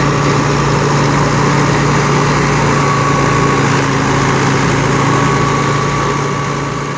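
Wheat thresher running off a Fiat 640 tractor's PTO: the loud, steady churn of the threshing drum over the tractor's diesel engine working under load. The sound fades slightly near the end.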